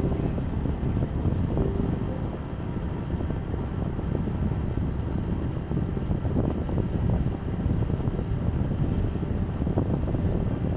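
Wind rumbling on the microphone: a steady low rush with no distinct tones.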